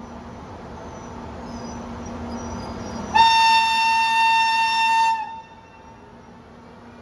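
Electric train's horn giving one steady high blast of about two seconds, over the rising rumble of the train moving through the station.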